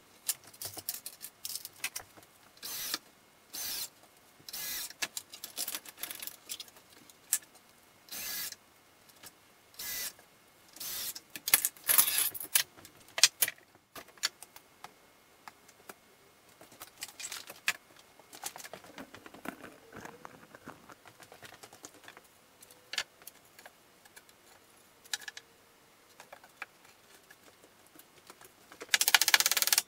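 Workshop handling noise during a table-base glue-up: metal bar clamps and hand tools clattering and wooden parts knocking, in many short, irregular bursts. Near the end a loud rushing noise lasts about a second.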